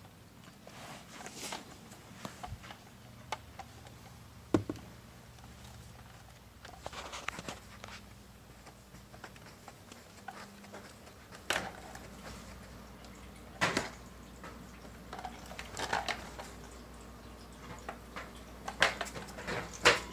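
Pink plastic hamster exercise ball rolling over carpet with a hamster inside, giving irregular knocks and short rustling scrapes every few seconds.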